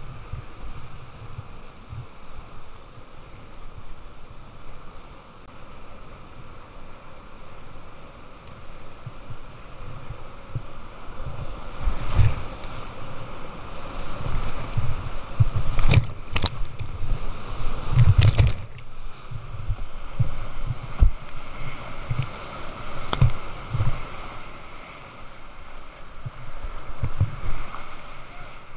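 Whitewater river rapids rushing around a kayak, heard through a camera riding on the boat, with frequent low thumps of water buffeting the housing. It grows louder about midway as the kayak drops into heavy foaming whitewater, with a couple of sharp splashes, then eases near the end.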